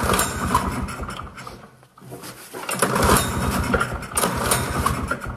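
A 1973 Polaris Colt's single-cylinder two-stroke engine being pull-started, cranked over by its recoil starter in two long spells of rapid chugging, without catching. The engine is not firing, which the owner puts down to no spark.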